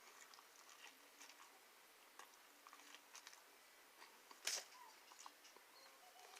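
Quiet close-up chewing of pizza: scattered soft mouth clicks and smacks, with one louder sharp sound a little past halfway.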